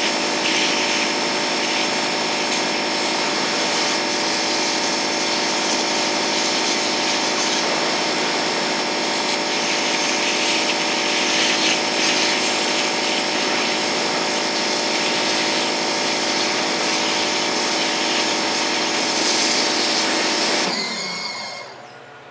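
Pressure washer at around 4,200 PSI spraying a high-pressure water jet into a pumpkin's rind to carve it, a loud steady hiss with a steady hum beneath. About twenty-one seconds in the jet is shut off and the sound drops to a much quieter steady level.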